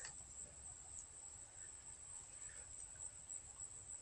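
Faint, steady high-pitched trill of insects over near-quiet.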